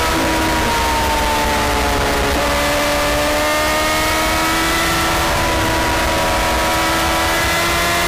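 Superbike engine running at motorway speed, its note sinking slightly for the first couple of seconds and then climbing slowly and steadily as the bike accelerates, under heavy wind rush.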